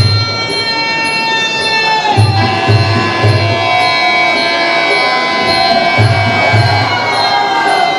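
Music: a held, reedy melody that slides in pitch over a repeating pattern of low drum beats in groups of three.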